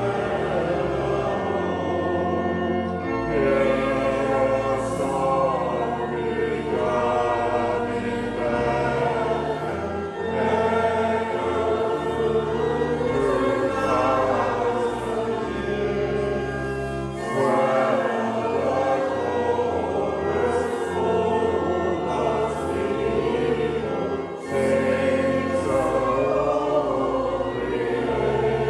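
Congregation singing a hymn over sustained low accompaniment, the singing continuous throughout.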